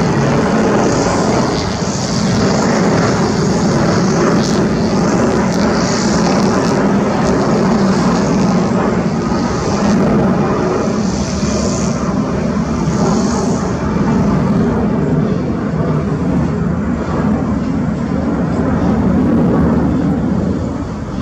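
Jet engines of an Avianca Cargo Airbus A330 freighter at climb power just after takeoff: a loud, steady rumble with a low drone and a high hiss that swells and fades every second or two.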